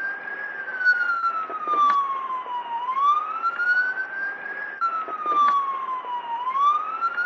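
Ambulance siren on a slow wail: the tone rises quickly, then falls slowly, and the cycle repeats about every three and a half seconds.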